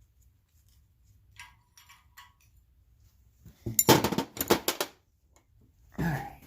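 Metal tools and engine parts clinking and rattling during a small-block V8 teardown: a few light clicks, then a loud cluster of clanks about halfway through and another burst near the end.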